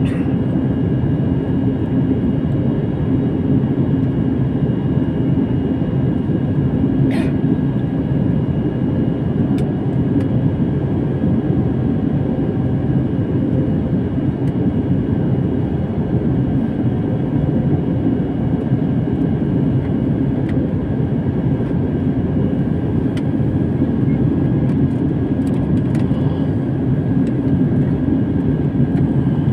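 Steady cabin noise of a jet airliner in flight: an even low rumble of engines and airflow, with a faint steady high whine and a light click about seven seconds in.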